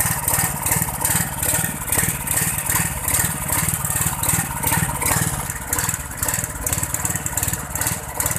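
Small engine-driven pump running steadily, with an even rapid pulse.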